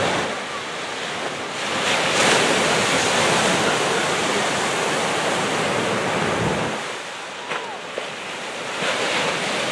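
Ocean surf breaking on a sandy beach: a continuous wash of waves that swells about two seconds in, eases around seven seconds and builds again near the end.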